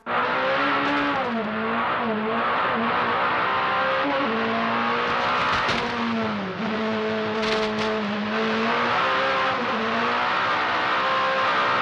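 Peugeot 405 Turbo 16 rally car's turbocharged four-cylinder engine heard from the cockpit at full throttle. It cuts in suddenly, and its pitch climbs and dips repeatedly as the driver lifts and shifts between corners, over a steady rushing noise.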